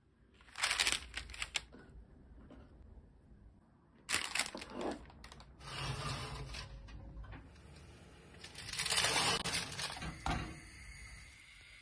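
Parchment paper rustling and crinkling in several short bursts while a tray of eggplant slices is handled at the oven. Near the end there is a short sharp knock as minced meat goes into a frying pan.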